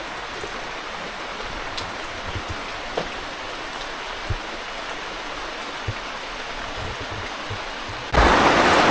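Steady rain falling, an even hiss with a few faint drips and knocks. About eight seconds in, a much louder rush of noise cuts in abruptly.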